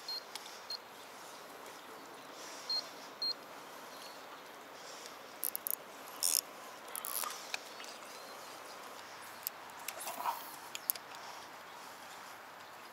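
Scattered light clicks and ticks from handling a spinning rod and reel, over a faint steady outdoor background.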